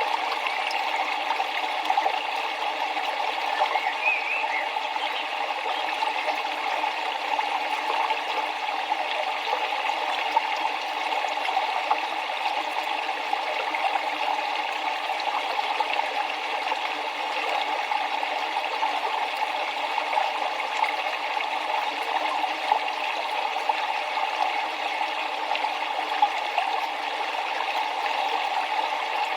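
River water flowing steadily, an even rushing sound with nothing below the low-mid range. About four seconds in, a short high chirp briefly rises above it.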